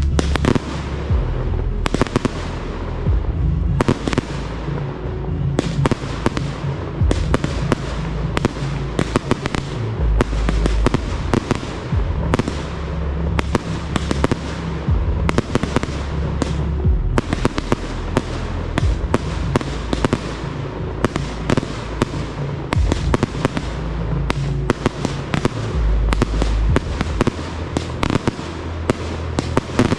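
Fireworks display: aerial shells bursting and crackling, several bangs a second without a break.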